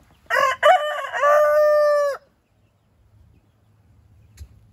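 Lavender Orpington rooster crowing once, a cock-a-doodle-doo of about two seconds: a few short broken notes, then a long held final note that cuts off.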